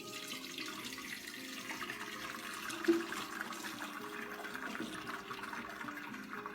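Beef yakhni, the meat broth, being poured out of the cooking pot in a steady splashing stream. One brief knock of the pot about three seconds in.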